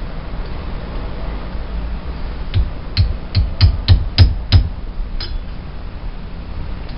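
A hammer taps a thin stainless-steel drift against the U-joint yoke of a Jaguar E-Type drive shaft held in a vise. There are about eight sharp strikes, roughly three a second, starting a couple of seconds in. The blows are meant to ease a stiff new U-joint.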